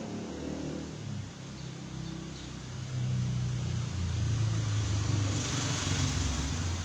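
A motor vehicle going by: a low engine hum that swells about three seconds in and is loudest near the end, with a rising hiss as it comes closest.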